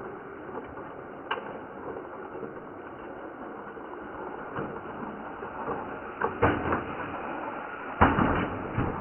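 Toy RC rock crawler clattering over rock: its plastic wheels and chassis knock against the stone, with a cluster of knocks about six seconds in and a louder cluster near the end, over a steady background hiss.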